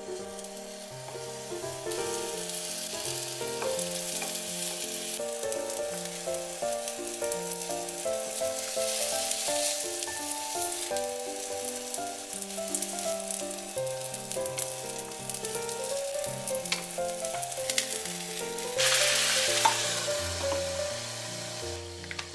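Eggplant-and-minced-meat sandwiches (hasamiyaki) sizzling as they fry in a frying pan, the sizzle swelling louder for a moment about nineteen seconds in. Background keyboard music plays throughout.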